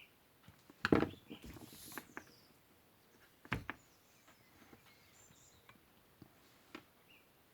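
Handling knocks and clicks from a chainsaw carburettor on a pressure tester while its adjustment screw is turned open: a sharp knock about a second in with a brief hiss after it, a sharp click about three and a half seconds in, and a few small ticks.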